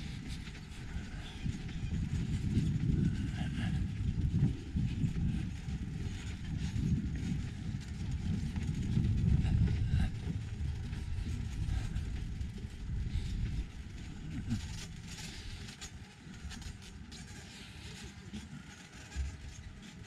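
Wind buffeting the microphone: an uneven low rumble that swells in gusts through the first half and eases off after about ten seconds.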